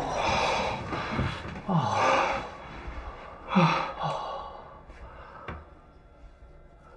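Men sighing and exhaling heavily without words: three breathy bursts in the first four seconds, two ending in a short falling groan.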